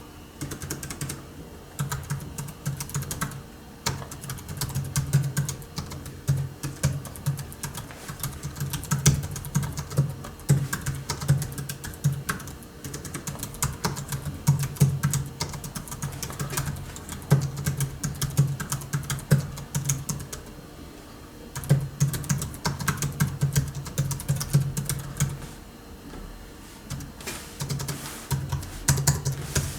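Typing on a Hansung GK698 OfficeMaster low-noise pantograph (scissor-switch) keyboard: quick, soft key clicks in fast runs, broken by a few short pauses.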